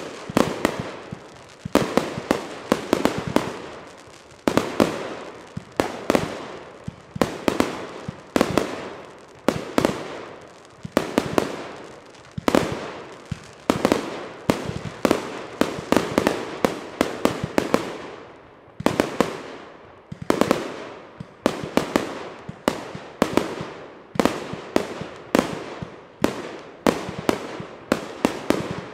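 Aerial fireworks bursting in a rapid, continuous string of sharp bangs, about two a second, each fading in an echo.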